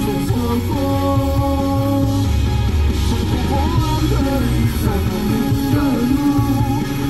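Karaoke: a man sings a rock song into a handheld microphone over a loud backing track, with held, wavering sung notes.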